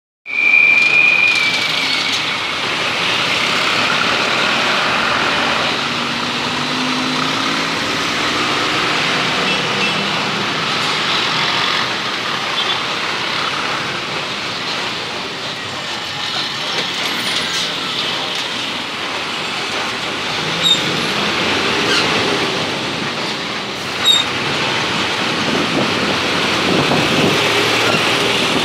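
Busy road traffic: engines of cars, a bus and auto-rickshaws running and passing, with a brief high squeal at the start and an engine note rising for a few seconds early on. Two short sharp clicks sound a few seconds apart about three-quarters of the way through.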